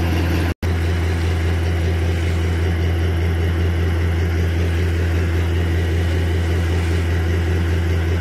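A 110 HP air compressor running steadily with a low, even hum, blowing air down a newly drilled 9-inch borewell so that water gushes and splashes up out of the casing. The sound drops out for an instant about half a second in.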